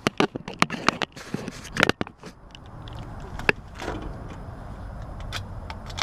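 A quick run of sharp clicks and taps from hand work at an air conditioner's capacitor and its wiring, thinning to a few ticks about halfway through, over a steady low background noise.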